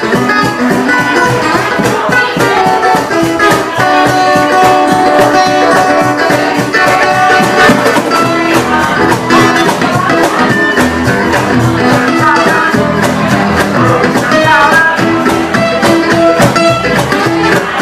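Live acoustic band playing an instrumental passage: strummed and picked acoustic guitars over a steady percussion beat.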